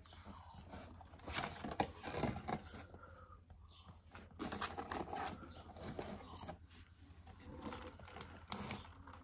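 Two people eating close to the microphone: irregular chewing and mouth noises, over a steady low hum.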